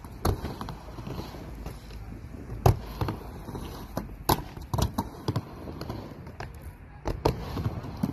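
Skateboard riding a ramp: a steady low rumble of wheels rolling, broken by about ten sharp knocks at uneven intervals from the board and trucks hitting the surface and coping.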